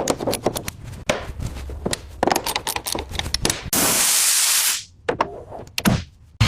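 Quick, irregular clicks and knocks of workshop tools, then a hiss of about a second, like air or paint spray, then a few more clicks.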